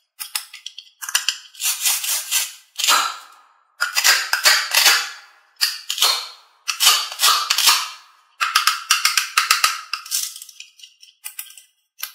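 Hook-and-loop (velcro) fastener on a plastic toy cutting-fruit tomato being pulled apart and pressed back together. It gives a series of crackling rips with short pauses between them.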